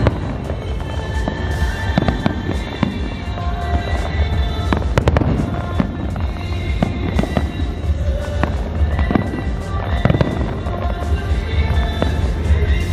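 Aerial fireworks bursting overhead in a rapid, irregular string of bangs and crackles, with music playing underneath.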